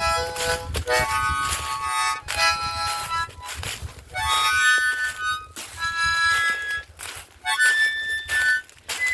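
Solo harmonica playing an instrumental melody in short phrases of held notes, with brief gaps between the phrases.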